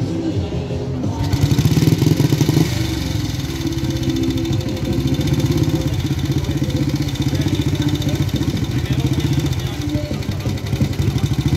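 Engine of a vintage motor vehicle running close by, revved briefly about a second and a half in, then running on.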